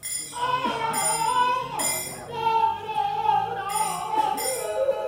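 Manipuri Nat Sankirtan devotional singing: a voice draws out long, wavering, ornamented notes, with several ringing clashes of hand cymbals. It begins after a short pause.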